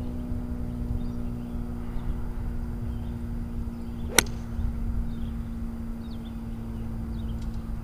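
A golf club strikes a ball once about four seconds in: a single sharp click at impact. Under it runs a steady low mechanical hum, with faint bird chirps.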